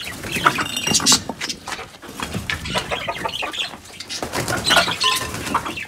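Chickens clucking and calling in a wire-mesh coop as its door is opened, with scuffling and knocks among the calls.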